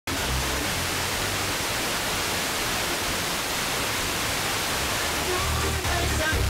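Heavy FM static hiss from a weak, distant station received by sporadic-E skip, with music faintly coming through under the noise and growing a little clearer near the end.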